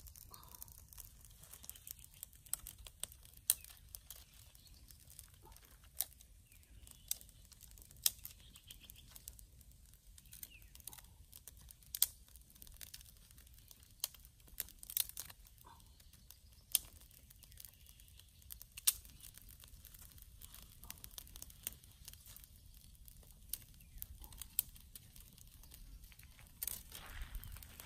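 Dry twigs snapping and crackling: sharp, irregular clicks about a second apart from a small smoking twig fire and sticks broken by hand. Near the end comes a louder, denser rustle of dry branches being handled.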